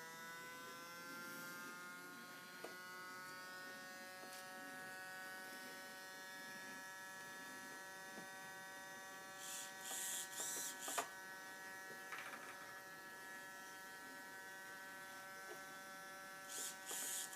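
Mechanical rate gyro of a nitro RC helicopter spinning, a faint steady whine of several pitches at once. Short servo buzzes come about ten seconds in and again near the end.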